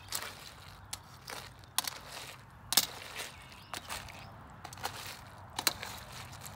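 Boiled crawfish being stirred and scooped down in a boil pot: irregular sharp clicks and clatter of shells and the scoop, the loudest about three seconds in.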